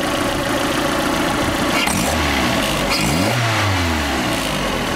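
Turbocharged Ford Festiva four-cylinder engine running, blipped up twice about two and three and a half seconds in, each rev held about a second before settling back to idle. The owner takes its uneven, heavy-breathing running for a wounded piston.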